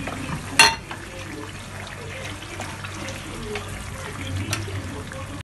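Wooden spoon stirring a pan of simmering tomato stew: the liquid bubbling and the spoon scraping through it, with a sharp knock about half a second in.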